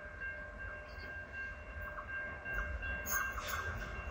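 Suburban passenger train approaching along the line: a steady high whine carries throughout, and a growing rumble and rattle join it from about two and a half seconds in as the train nears.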